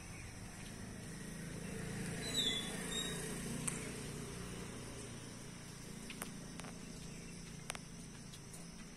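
Outdoor background with a low rumble that swells about two seconds in and slowly fades, as of a vehicle passing, under a steady high hiss. A short high chirp sounds near the loudest point, and a few faint clicks follow.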